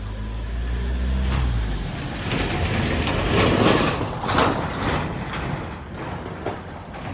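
A light flatbed truck drives past close by: a low engine note at first, then engine and tyre noise swelling to its loudest about three and a half to four and a half seconds in and fading as it moves away.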